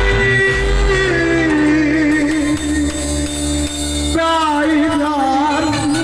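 Egyptian mawwal sung by a male singer through a microphone and loudspeakers, holding long, wavering, ornamented notes that slide downward, over keyboard accompaniment. A new ornamented phrase begins about four seconds in.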